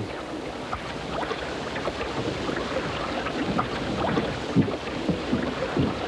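Steady rush of wind and water along the waterfront, with scattered small knocks and a few brief low creaks.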